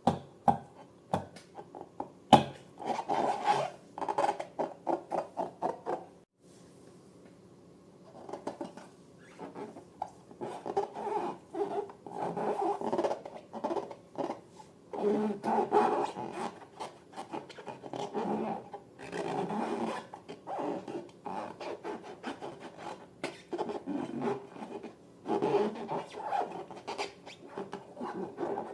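Slime being squished and worked by hand, a busy run of short squishing and rubbing noises with a few sharp clicks in the first couple of seconds and a quieter pause at about six seconds.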